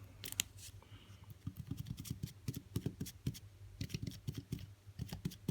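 Hands handling a phone battery and its adhesive strips on a work surface: a busy run of light taps, clicks and rustles, over a faint steady low hum.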